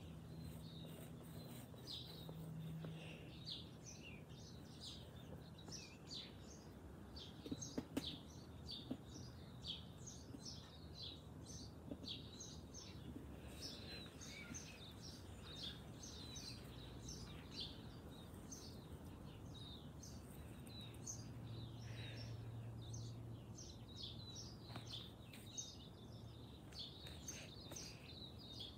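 Birds chirping in a garden: many short, quick chirps overlapping throughout, over a faint low hum. A few sharp clicks come about eight seconds in.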